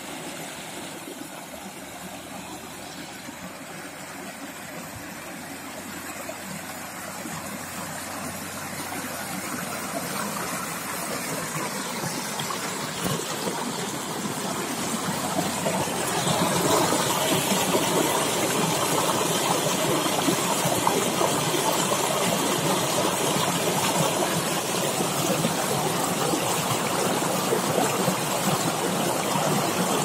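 Waterfall rushing, a dense steady roar of falling water that grows louder over about the first half and then holds steady.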